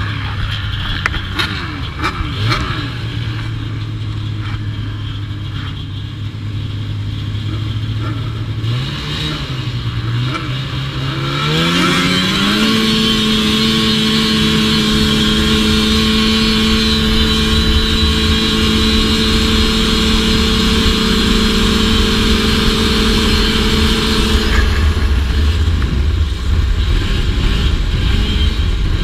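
Polaris Indy Lite 340 snowmobile's two-stroke engine idling, then revving up over a few seconds into a steady, high-pitched run of about twelve seconds. It eases off briefly near the end, then picks up again.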